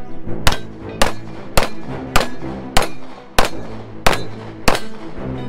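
CZ Shadow 2 pistol firing eight shots at a steady pace, about six-tenths of a second apart.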